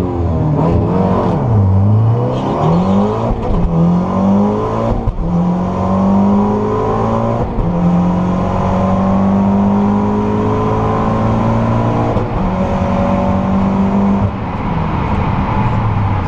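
Turbocharged 2.0-litre four-cylinder of a big-turbo VW Golf R, heard from inside the cabin: revved up and down at the start line, then launched about five seconds in and held at full throttle, the engine note climbing in each gear and dropping at three upshifts of the six-speed manual.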